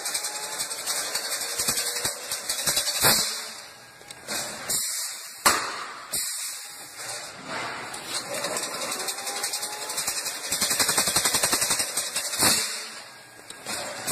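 Chain-link fence weaving machine running with a fast, continuous metallic clatter. It eases off twice, about 4 and 13 seconds in, and each time picks up again with a sharp clack.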